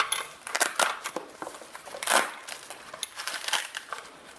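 Handling noise from a survival shovel multi-tool and its carry case: scattered clicks and short rustling, scraping sounds as the kit is opened and its parts are handled.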